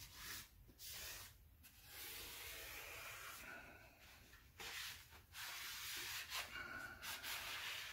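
Blue shop towel rubbing over the face of an MGB flywheel, a faint scrubbing in several spells with short pauses between them.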